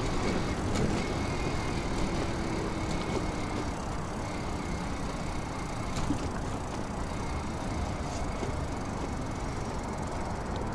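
Wind buffeting the microphone and tyre noise from a 2000 W DIY electric bike riding along, with a faint thin whine in the first half and a few sharp clicks.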